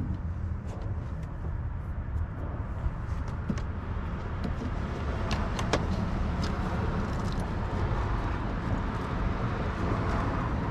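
Scattered small clicks and taps of hand tools and parts being handled while the car's air intake is taken apart, over a steady low background rumble.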